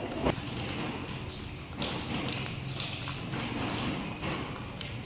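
Scattered light taps and knocks with some rustling, over a steady low hum.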